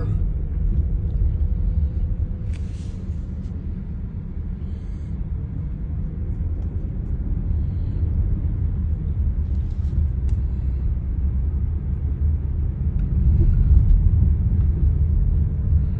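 Steady low rumble of a vehicle on the move, its engine and road noise running continuously, with a few faint clicks.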